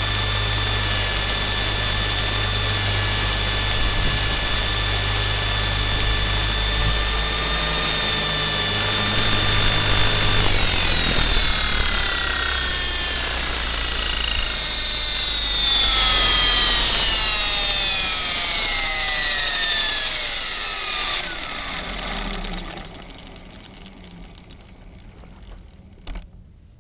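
T-Rex 450 SE V2 electric RC helicopter's motor and drive gears whining at a steady high pitch, heard up close from a camera on the landing skid. After about ten seconds the whine glides down in pitch and fades as the rotor head spools down, leaving it quiet near the end.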